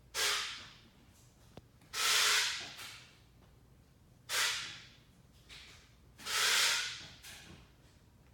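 A person breathing heavily close to the microphone: four loud breaths about two seconds apart, alternately shorter and longer, each fading quickly.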